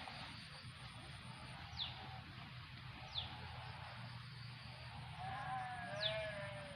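A bird gives short, sharp falling whistles about every second or so. Near the end comes a longer, slightly falling call with several overtones, over a faint low steady hum.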